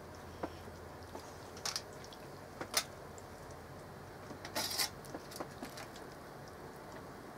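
Melted butter being poured from a glass measuring cup over vegetables in an aluminium foil pack: quiet, with a few soft clicks and crinkles of the foil, the sharpest about three seconds in and a short rustle near five seconds.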